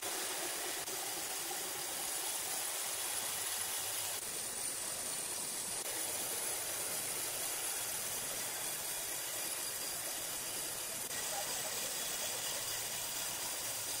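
Steady, even hissing noise with no distinct knocks or tones: the background sound of a sawmill shed.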